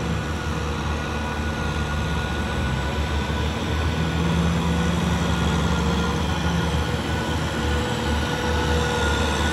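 Tractor's diesel engine running steadily as it drives through wet paddy mud, a low even drone that grows a little louder about four seconds in as the tractor comes closer.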